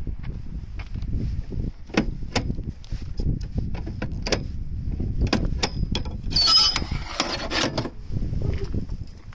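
Stainless-steel telescoping boarding ladder under a boat's swim platform being pulled out and unfolded: a run of metal clicks and clanks, with a longer sliding rattle from about six to eight seconds in.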